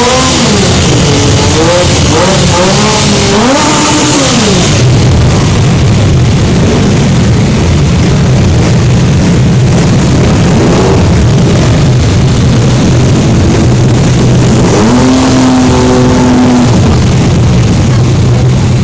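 Benelli Tornado 900's three-cylinder engine being revved hard: several quick rises and falls in pitch, then running lower with another blip and a held high rev in the last few seconds. Loud throughout.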